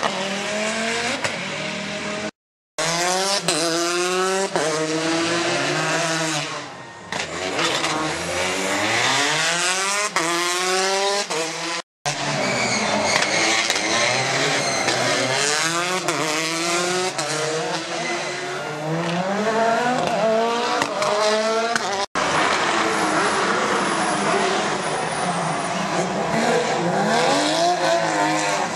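Rally car engines revving hard, the pitch climbing and dropping again and again through gear changes, with tyre squeal, in several short passes separated by abrupt cuts.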